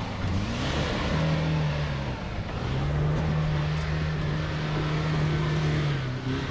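A 4WD's engine pulling at low, fairly steady revs as it crawls through a muddy water crossing, with water sloshing around it. The engine note lifts slightly a couple of times.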